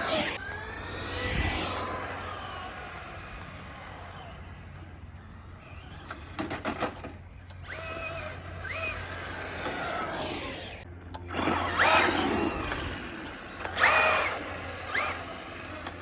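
Traxxas Slash RC truck with a VXL brushless motor driven in bursts, its electric whine rising and falling in pitch with the throttle, with two louder surges of acceleration near the end.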